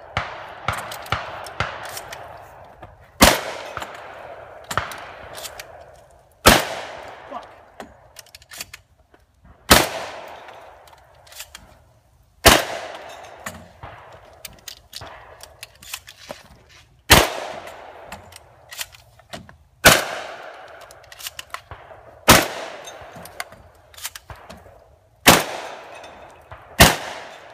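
A semi-automatic shotgun, a Remington VersaMax, fired in single shots every two to five seconds, nine loud blasts in all, each ringing out briefly. Quieter clicks and knocks fall between the shots.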